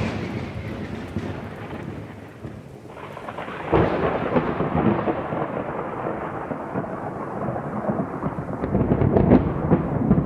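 Thunder rumbling: a sudden loud crack, then a long rolling rumble that fades and swells again about four seconds in.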